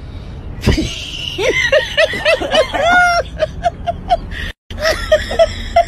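People laughing hard, in a run of quick repeated "ha" bursts. The laughter breaks off into silence for a moment about halfway through, then carries on.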